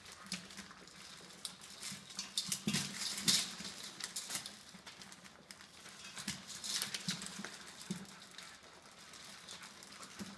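Six-week-old Labradoodle puppies eating dry kibble from a stainless steel bowl set on newspaper: irregular crunching and clicking of kibble against the metal, with small paws rustling the paper.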